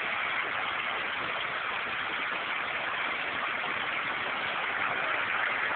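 Floodwater rushing into a street: a steady, even rushing noise with no change in level.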